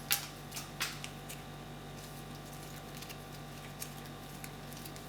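Light clicks and taps of number cards being handled and mixed up on a surface, two sharper clicks in the first second and a few faint ticks after, over a steady low hum.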